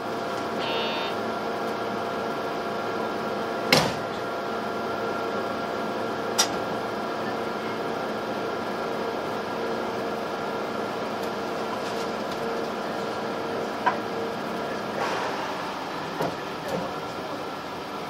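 Cabin of a JR West 681 series express train car standing at a station: a steady hum of onboard equipment made of several held pitches, with a short high beep about a second in and a few sharp knocks. Near the end the hum changes as the train starts to pull away.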